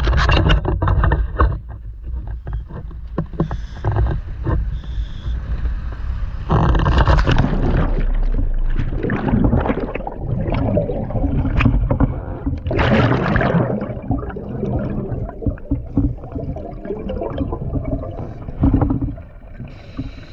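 A scuba diver breathing underwater: regulator exhaust bubbles rush out in loud bursts about every six seconds over a low rumble. A clatter of knocks comes at the start.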